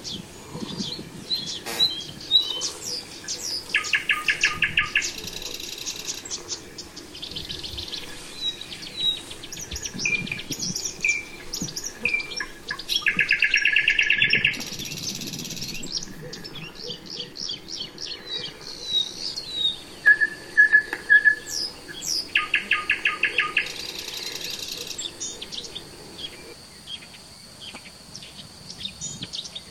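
Songbirds singing, several chirps and whistles overlapping, with a loud trill of fast, evenly repeated notes about a second long coming back about every nine seconds. A thin, steady high tone joins in a little past the middle.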